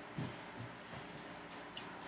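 Quiet handling of a hand plane: a soft knock, then a few faint ticks.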